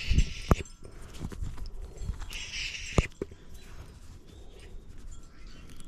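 Parts being peeled off a piece of scrap by hand, twice: each time a short rasping tear that ends in a sharp snap as the part comes free, with small knocks of handling in between.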